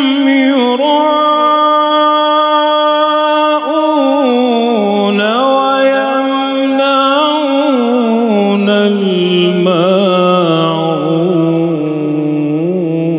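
A man reciting the Quran unaccompanied in melodic tajweed style, drawing out long ornamented notes that step down in pitch, with a lower stretch about five seconds in and again near the end.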